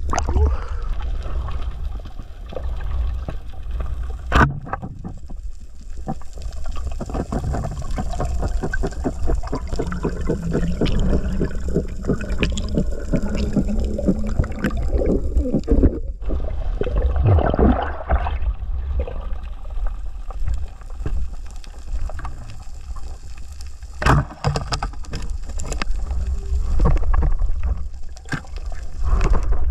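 Underwater water noise picked up by a diver's camera: a steady low rumble with gurgling. Over it are rapid clicking through the middle and a few sharp knocks, the loudest about four seconds in and again near the end.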